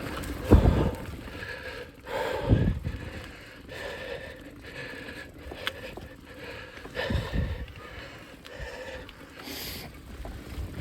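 A mountain biker breathing hard while riding, a heavy gasping breath every second or two.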